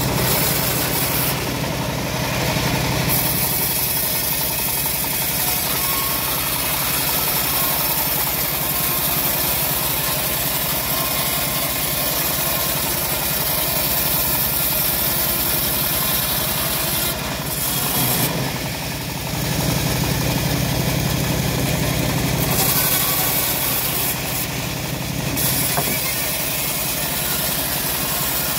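Engine-driven home-built bandsaw mill sawing a teak log: a steady engine drone under load with the hiss of the blade cutting through the wood, the hiss easing a few times as the feed slows.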